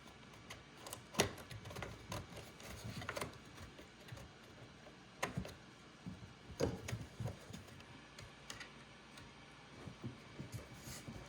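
Faint, irregular clicks and small knocks from handling a Makita electric chainsaw while its chain-tensioning wheel is turned to draw the chain taut on the bar.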